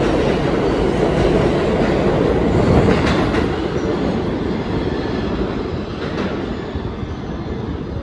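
An Alstom-propulsion R160A subway train pulling out of the station, its cars running past loudly. The noise peaks about three seconds in as the last car passes, then fades as the train runs into the tunnel.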